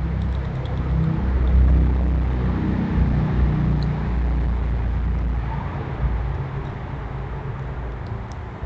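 A motor vehicle passing by: a low engine rumble that swells over the first couple of seconds and fades away by about six seconds in.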